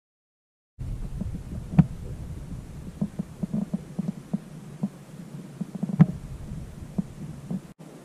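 Muffled thumps and knocks close to the microphone, over a low rumble, as the camera is handled and moved. Two sharper clicks stand out, about two seconds in and again about six seconds in.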